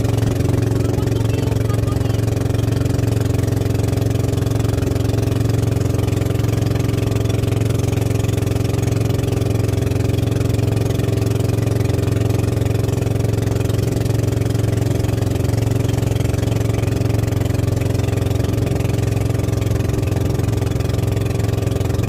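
Boat engine running steadily at constant speed, with a low, even drone.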